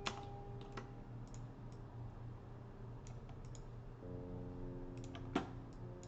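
Scattered clicking at a computer while sculpting in Blender, a handful of sharp clicks with a louder one about five seconds in. Underneath runs soft background music of long held notes that change chord about four seconds in.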